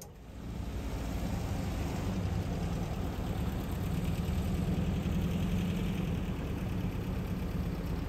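Air-cooled flat-four engine of a 1971 VW Type 2 Westfalia bus running steadily as the bus rolls slowly along.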